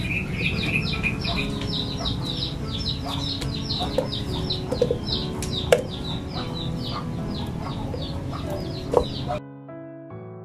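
Chickens calling in quick, repeated high cheeps and clucks, with a few sharp knocks. Near the end it cuts suddenly to soft piano music.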